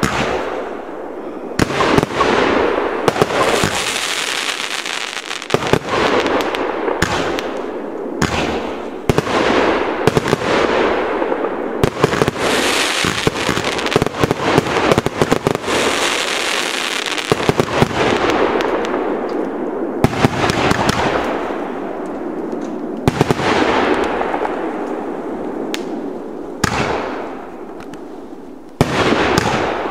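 Nova Fireworks "Big Boy" fireworks firing shot after shot. Sharp bangs of launches and bursts come a second or few apart, each followed by a long crackling hiss from the burning stars that fades away.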